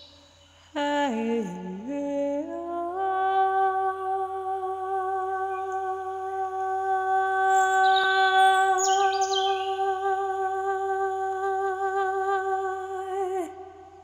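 A voice humming: a few notes stepping down and back up, then one long held note with a slight waver for about ten seconds, which drops away near the end. A few short bird chirps come in around the middle.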